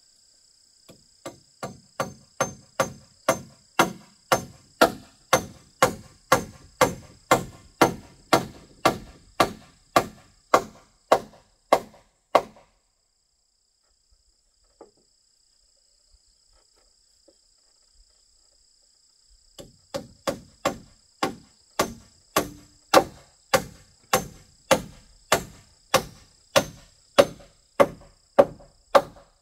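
Hammer blows on a wooden roof pole, about two a second, starting lighter and growing harder. The blows stop for several seconds, then start again in a second steady run, over a constant high buzz of insects.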